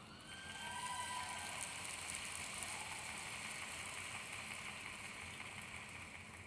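Audience applauding and cheering as a piece of drum corps music ends, swelling about half a second in and slowly fading.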